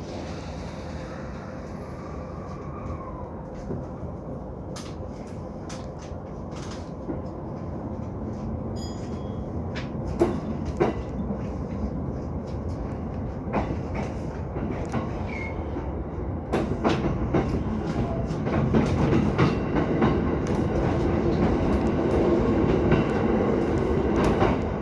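Electric train running and picking up speed, its running noise growing steadily louder, with the wheels clicking over rail joints now and then, more often toward the end.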